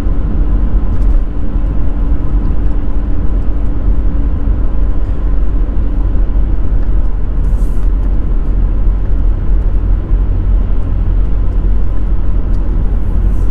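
A VW Caddy van driving along at speed, heard from inside the cab: a steady low engine and road rumble, with a faint hum that fades out about halfway through.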